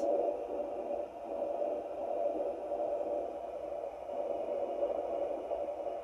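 Facelake handheld fetal Doppler's speaker giving a steady whooshing static, its probe resting on the ribs, with a faint heartbeat underneath: the adult wearer's own heartbeat, not a fetal one.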